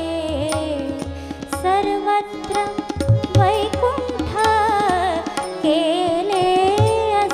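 Devotional Marathi abhang sung live by a woman with an ornamented, wavering melody, accompanied by harmonium's steady held notes and tabla strokes with deep bass beats.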